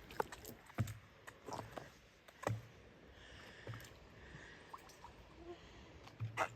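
Footsteps walking slowly over wet, grassy ground: a soft thud with a rustle about every second.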